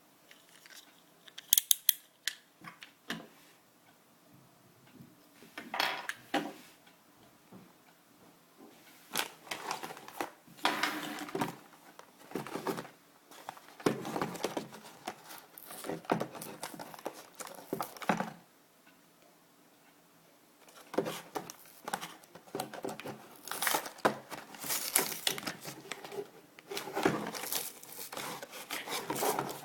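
Toy packaging being opened by hand: a few sharp clicks, then irregular bursts of cutting, tearing and crinkling of plastic and cardboard with short pauses between them.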